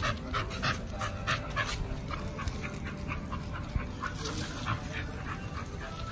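A pit bull panting, fast and even at about three breaths a second, the breaths growing weaker and less regular after a couple of seconds.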